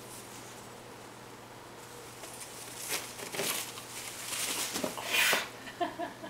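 Palm fronds rustling and shaking as a kitten climbs through a potted palm, in several bursts starting about halfway through after a quiet start.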